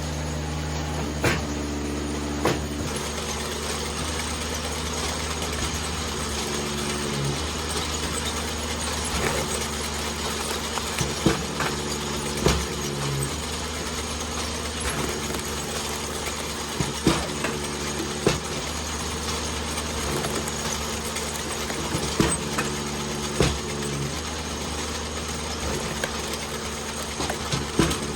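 Eastonmade 37D hydraulic wood splitter's engine running steadily, its note shifting briefly a few times, with sharp cracks and knocks of poplar rounds splitting and pieces dropping every few seconds.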